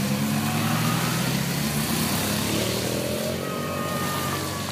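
Police motorcycle passing close on a wet road, its engine note dropping as it moves away, over a steady hiss of tyres on the wet surface.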